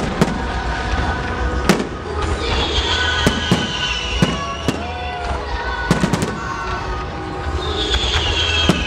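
Fireworks display: aerial shells bursting in an irregular run of sharp bangs, with two long whistles falling slowly in pitch, one starting about two and a half seconds in and another near the end.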